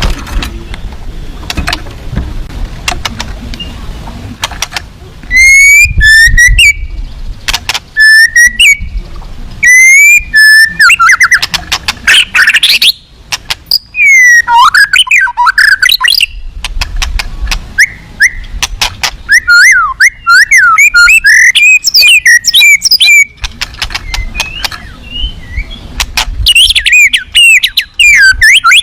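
White-rumped shama (murai batu) singing a loud, varied song of rapid whistled phrases with sliding notes. The first few seconds hold only quieter clicks and short chips before the full song starts.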